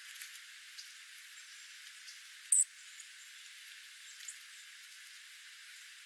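A small songbird gives one short, sharp, high chip call about two and a half seconds in, over a faint steady hiss, with a few fainter high ticks and chips scattered around it.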